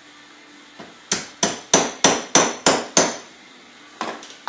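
A small hammer lightly tapping a part down into place on a 33mm Mikuni carburetor: a faint first tap, then seven sharp, even taps at about three a second, followed by a brief clatter near the end.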